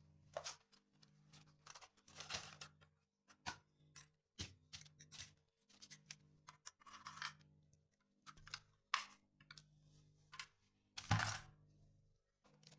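Scattered clicks, taps and rustling of packaging as heavy-duty staplers are unboxed and handled, with one louder thunk near the end. Quiet background music plays underneath.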